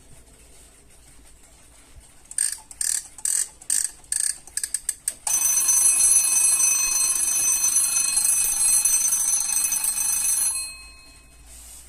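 Rhythm 51111 alarm clock's alarm going off. It starts about two seconds in as short separate rings that come faster and faster, then rings continuously for about five seconds before stopping.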